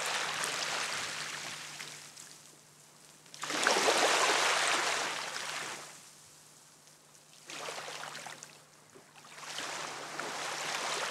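Small waves washing onto a shallow sandy shore, coming in four swells a few seconds apart, the second one the loudest.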